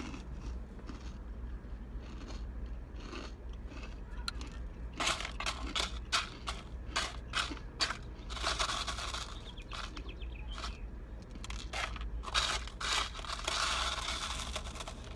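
Crinkling and crunching as fast-food packaging and fried food are handled: a run of sharp crackles starting about five seconds in, thickest around the middle and again near the end.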